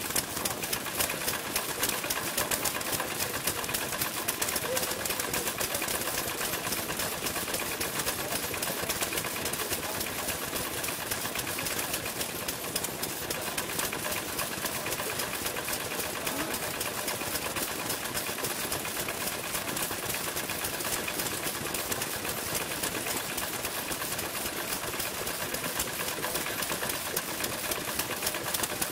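Several vintage Japanese stationary kerosene engines running together, their firing and open-crank clatter merging into a steady, rapid stream of pops and clicks.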